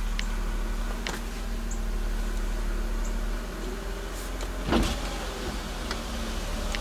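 A steady running hum inside a 2005 BMW 325ci's cabin, with a light click about a second in and a dull thump a little before the five-second mark.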